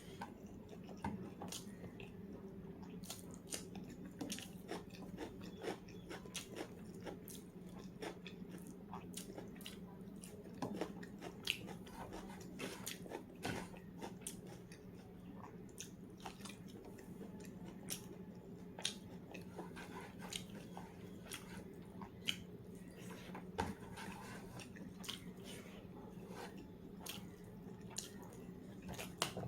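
Close-miked sounds of a person eating: chewing with frequent irregular sharp clicks and crunches of food, over a steady low hum.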